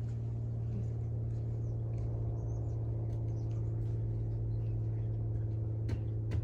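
A steady low hum at an even level, with faint high chirps here and there and a few soft clicks near the end.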